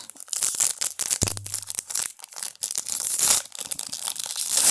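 Plastic wrapper of a baseball card pack crinkling and tearing as it is opened, a dense run of crackles. A single knock about a second in.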